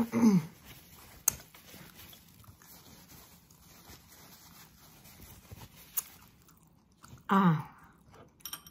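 Quiet mouth sounds of a woman chewing and swallowing the last of a mouthful, with a soft rustle as a paper napkin wipes her mouth. There is a sharp click about a second in and another near six seconds. Short hummed vocal sounds with falling pitch come at the start and again near the end.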